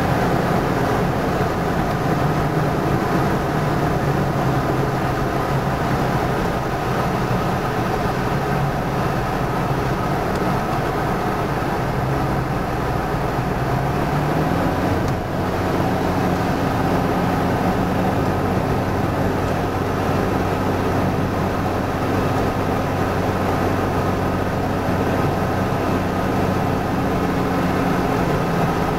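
Steady car road noise heard from inside the cabin while driving at speed: tyre and engine hum under a steady rush. The low hum drops to a lower pitch about halfway through.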